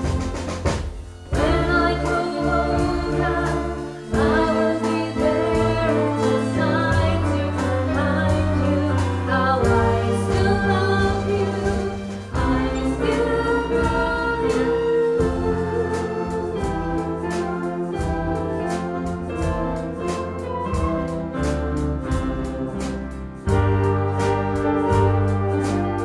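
A woman singing into a microphone, accompanied by an orchestra. The music swells louder near the end.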